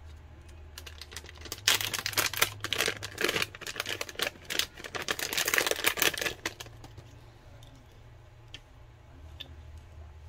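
Shiny anti-static plastic bag crinkling loudly as it is handled and opened to take out a pair of replacement laptop speakers, from about two seconds in until past six seconds; after that only a few faint clicks.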